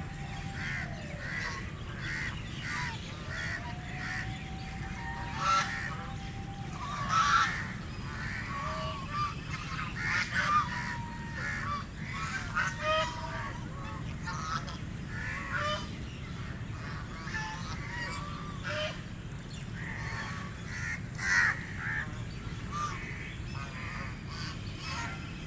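A group of ducks calling, with repeated short quacks coming in quick runs and louder single calls now and then, over a steady low rumble.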